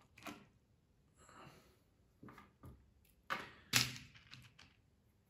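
Small clear plastic tackle box being handled while a metal crimp is picked out of it: a few short clicks and knocks of plastic and small metal parts, the loudest a little under four seconds in.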